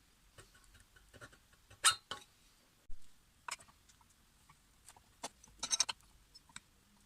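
Scattered light clicks and taps of small parts and tools being handled on a workbench, with a sharper knock about two seconds in and a quick run of rattling clicks near the end.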